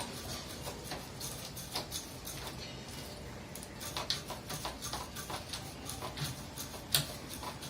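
Irregular light clicks and knocks, as of tools and parts of an air conditioner being handled during servicing, with one sharper click near the end.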